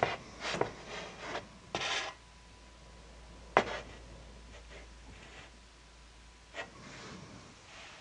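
Several short rubbing, scraping sounds in the first two seconds, one sharp click about three and a half seconds in, and a softer scrape near the end, over a faint steady high tone.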